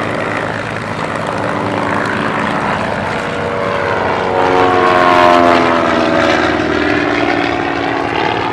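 Propeller airplane flying past, its engine note falling in pitch as it goes by, loudest about five seconds in.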